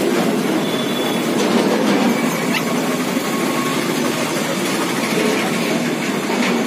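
Steady, loud background din with no clear single source, and a couple of faint short high chirps over it.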